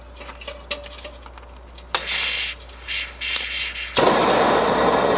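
Small propane camp stove being lit: gas hisses and a few sharp clicks sound around two to three seconds in, then at about four seconds the burner catches with a sharp pop and settles into a steady, really loud rushing flame.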